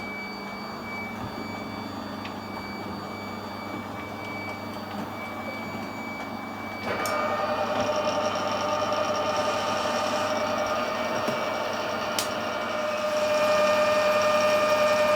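Metal lathe running while facing off the end of a steel workpiece. A steady hum at first; about seven seconds in a louder steady whine joins, and it grows louder again near the end.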